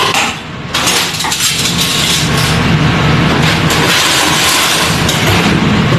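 Tap water running into a stainless steel sink over a steady low machine hum, with a brief dip in level about half a second in.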